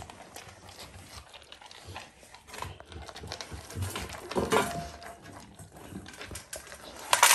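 An Alaskan malamute eating spilled dry kibble off a wooden floor: irregular small crunches, clicks and snuffles as it picks up the pieces. Just before the end a sharp, louder clank, like a stainless steel dog bowl knocked.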